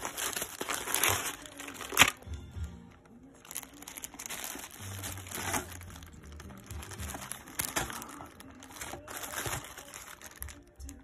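Plastic and antistatic component bags crinkling as they are handled and shuffled in a cardboard box, with one sharp tap about two seconds in.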